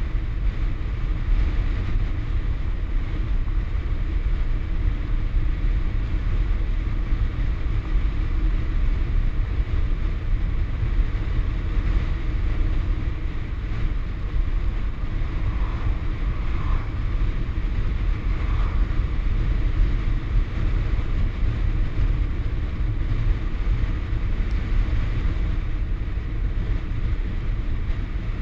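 Wind buffeting the camera's microphone on a fast bicycle descent: a steady, heavy low rumble.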